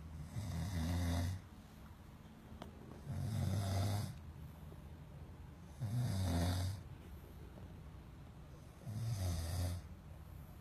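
A person snoring loudly: four deep, rattling snores about three seconds apart, with quieter breathing between them.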